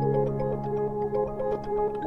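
Background music: held keyboard chords under a run of quick, light, short notes.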